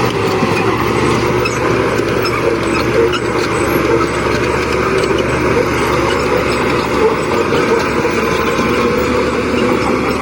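Heavy earthmoving machine's diesel engine running steadily and loudly, with no pauses or sharp knocks.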